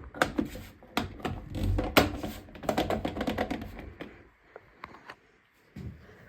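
A fast, irregular run of sharp clicks, taps and knocks from hard objects being handled, with a low rumble among them; it stops about four seconds in and only a few faint clicks follow near the end.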